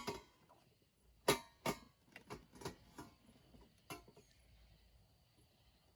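A few light knocks and clicks of small objects being handled, about half a dozen scattered over the first four seconds, then quiet room tone.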